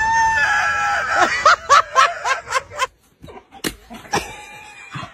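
A dog's drawn-out howling call for about a second, then a quick run of short, choppy laughing sounds. About three seconds in these give way to a few sharp knocks and thuds.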